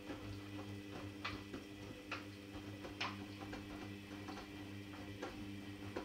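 Hoover Dynamic front-loading washing machine tumbling a load of denim in its 30 °C main wash: a steady motor hum under water sloshing, with irregular sharp clicks as the load drops in the drum, the loudest about three seconds in.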